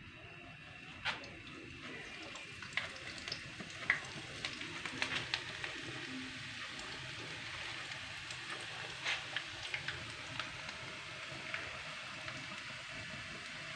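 Gram-flour (besan) dough strands frying in hot ghee in a frying pan: a steady sizzle, scattered with small crackles and clicks.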